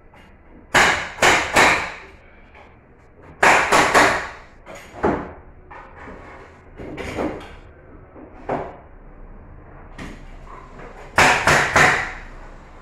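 Pneumatic nail gun firing into a treated-wood bed-base frame in quick runs of shots: three about a second in, three more around three and a half seconds, a single one at five, and four near the end. Softer knocks of the wooden frame come between the runs.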